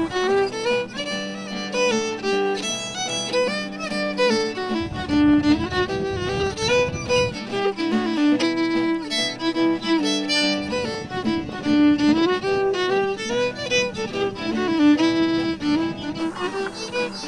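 Background instrumental music: a quick-moving melody over a steady low note.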